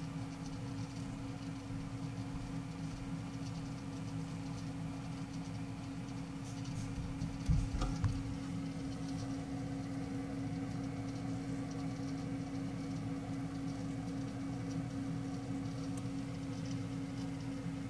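Steady low mechanical hum from a running machine. A couple of low thumps come about seven and a half seconds in.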